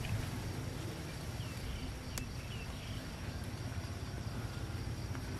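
A steady low outdoor rumble, with a few sharp crunches from a cat chewing dry kibble, the crispest about two seconds in. A couple of short faint high chirps come through just before and after it.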